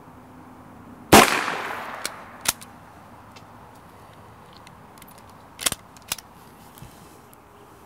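A single .22 LR shot from a Keystone Mini Mosin bolt-action pistol about a second in, with a short echo. It is followed by sharp metallic clicks twice about a second later and twice more near the end, as the bolt is worked and a fresh round is loaded.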